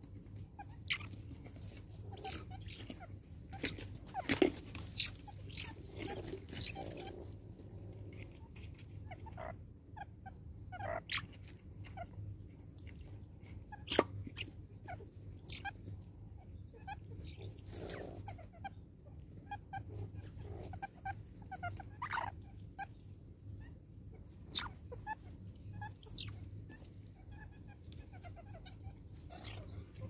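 Banded mongooses giving short clucking and chirping calls while feeding, with scattered sharp clicks, the loudest about four seconds in and again about fourteen seconds in.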